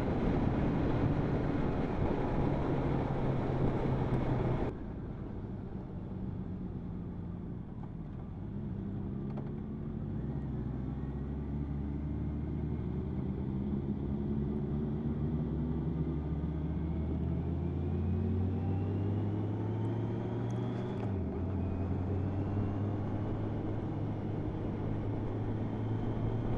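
Motorcycle ridden on the road: wind rush over the microphone for the first five seconds or so, cutting off abruptly, then the engine pulling steadily higher in revs, dipping once at a gear change about 21 seconds in and climbing again.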